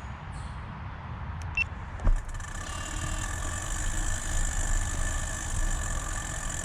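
A motor vehicle's engine running steadily with a low rumble and a whine, getting a little louder over the last few seconds. A single thump about two seconds in.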